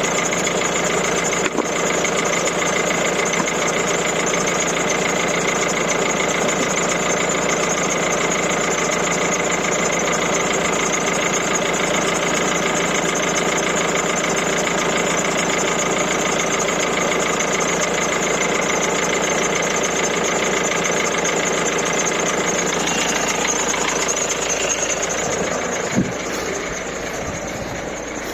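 A 1.6 HDi four-cylinder turbodiesel engine idling steadily, with one sharp knock late on.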